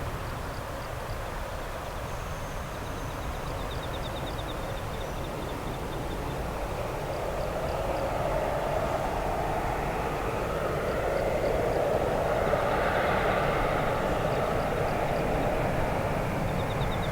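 Jet airliner engine noise swelling as the aircraft draws closer, with a sweeping, shifting pitch through its steady noise.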